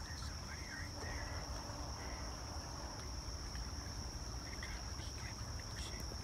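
Insects trilling steadily in one high, even tone, over a low rumble of wind and handling on the phone's microphone.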